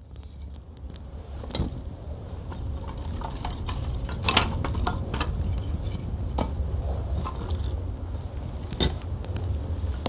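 A young campfire of paper and thin wooden kindling crackling, with scattered sharp snaps and pops over a steady low rumble. It builds up from quiet over the first couple of seconds.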